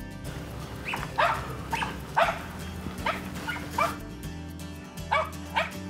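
Small squirrel dog barking at a tree where it has a squirrel treed: a run of sharp, quick barks, about two a second, a short pause about four seconds in, then more barks. Background music plays underneath.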